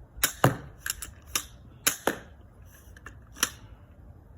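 Steambow AR-6 pistol crossbow being cocked, loaded and shot in quick succession: a string of sharp mechanical clicks and snaps, the loudest about half a second in.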